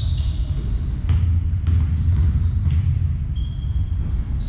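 Basketball game play on an indoor hardwood court: the ball bouncing, with a couple of sharp knocks about a second in and short high sneaker squeaks, over a steady low rumble from the hall.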